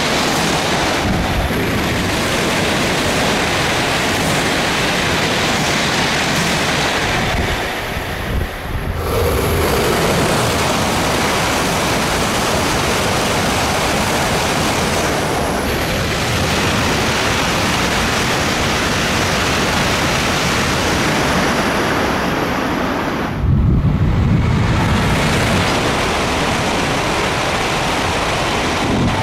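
Shinkansen bullet trains passing at high speed close by: a loud, steady rush of air and rail noise. It changes abruptly twice, about nine seconds in and again near the end, the second time with a heavier low rumble.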